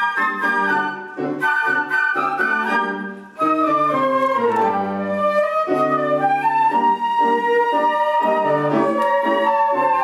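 Large flute ensemble playing a tango. Short, clipped chords in the tango rhythm for about three seconds, a brief gap, then a smooth, held melody over a pulsing lower accompaniment.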